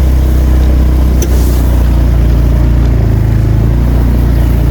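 A small engine running steadily and close, a constant low hum with an even pitch, with one brief click about a second in.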